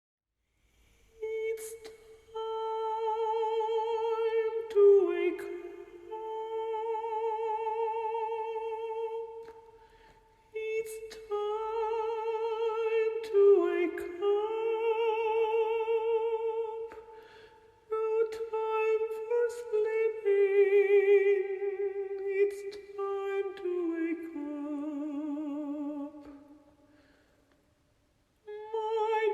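Background music: a slow wordless melody of long held notes with vibrato, in phrases a few seconds long with short pauses between.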